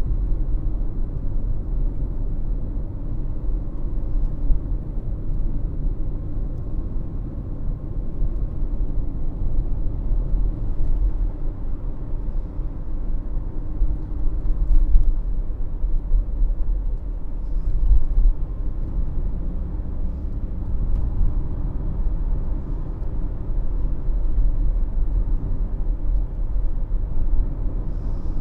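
Road noise from Dunlop Le Mans 3 LM703 tyres, the type with a sound-absorbing sponge inside, rolling at 40 km/h over worn asphalt: a steady low rumble with small swells in loudness.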